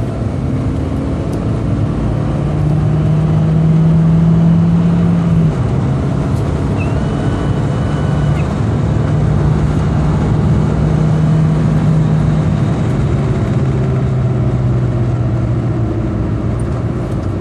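2002 Volkswagen New Beetle engine running, its pitch rising and falling, with a faint high whine over it. The whine comes from a vacuum leak through several broken plastic parts, as the owner found.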